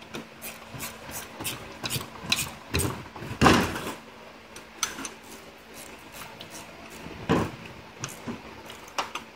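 Hand tools clicking and scraping against metal while the screws of a rebuilt pump motor's housing are tightened a little at a time, with irregular taps and one louder scraping knock about three and a half seconds in.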